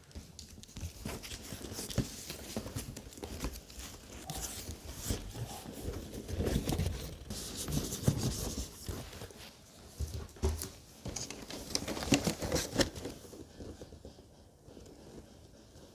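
Packaging being handled as a boxed RC truck is unpacked: irregular clicks, scrapes and rustles of cardboard and plastic. The noises are busiest in the middle and die down near the end.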